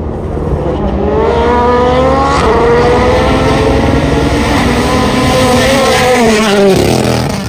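Rally car engine revving hard as the car approaches on a mountain stage, with a gear change about two seconds in. The revs fall away sharply near the end.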